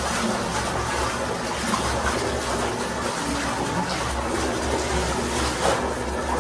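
Water running steadily from a wall tap and splashing into a plastic bucket.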